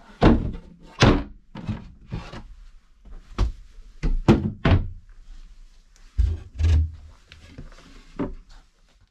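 Wooden bench-seat lids and a plywood board being lifted, moved and set down against the wooden frame: a string of about ten hollow wooden knocks and thunks at uneven intervals.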